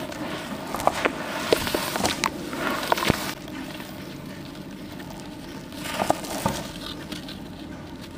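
Wet charcoal slabs being squeezed and crumbled by hand in water, with gritty crackling and sharp snaps of breaking pieces. The crumbling is busiest in the first three seconds, quieter handling follows, and another spell of crushing comes about six seconds in.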